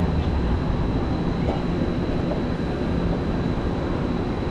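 Steady rumble and hum of a Tren Maya passenger train heard from inside the car, with a thin high whine above it.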